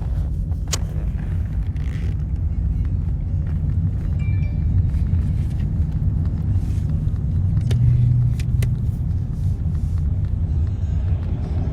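Steady low road and engine rumble inside a moving car's cabin, with a couple of sharp clicks.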